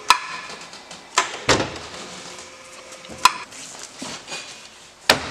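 Irregular sharp knocks and clanks of workshop work on a fiberglass boat, about five in all, two of them with a brief metallic ring.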